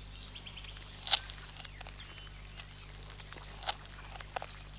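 A steady, high-pitched chorus of trilling insects, with a few short sharp clicks over it; the loudest comes about a second in.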